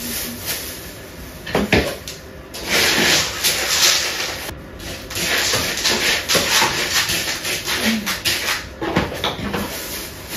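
Household clatter of a pet bowl being washed and filled: knocks and clicks, with about two seconds of rushing tap water a few seconds in.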